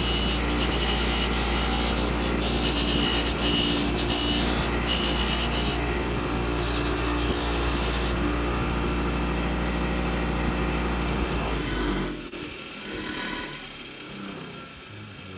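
A Delta bench grinder running with a steady motor hum while a rusty threaded steel rod is pressed against its spinning wire wheel, giving a harsh scraping rub as the rust is brushed off. About twelve seconds in, the hum and scraping stop abruptly.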